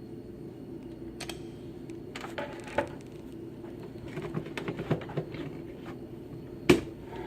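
Scattered light clicks and taps of small objects being handled, with one sharp knock near the end, over a steady low hum.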